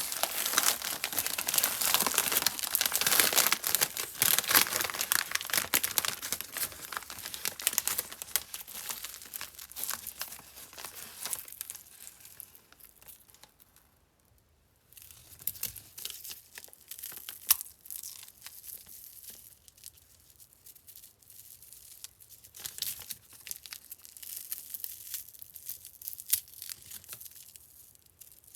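Candy wrappers crinkling and tearing as waffle candy is unwrapped close to the microphone: dense crackling at first that thins out, a brief hush about halfway through, then sparser crinkles and a sharp snap.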